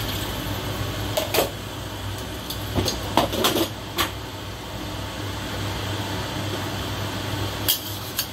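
A steady kitchen hum, with a few sharp clinks of a metal spatula against a wok about a second in, around three and four seconds in, and near the end.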